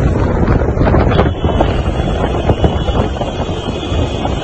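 Loud wind buffeting the microphone of a phone filming from a moving vehicle: a steady, deep rushing noise, with the vehicle's running noise underneath.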